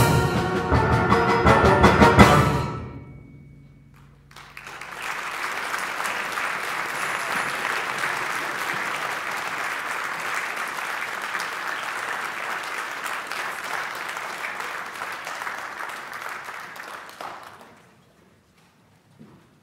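A school concert band with percussion ends its piece on a loud final chord that rings off, then the audience applauds from about four seconds in, the applause fading out near the end.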